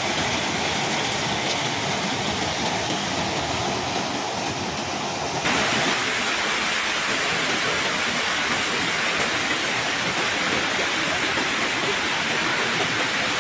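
Steady rushing of water, typical of storm floodwater or a heavy downpour. About five seconds in it jumps suddenly to a louder, brighter rush.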